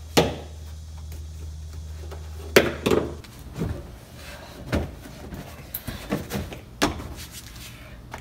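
Scattered knocks and thumps, about eight of them and the loudest right at the start, as a car's rear seat and its foam-backed panel are worked loose and lifted out.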